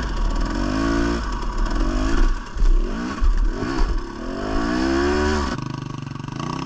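Dirt bike engine revved in a series of rising bursts, as on a rocky climb, then dropping back to a steady idle about five and a half seconds in.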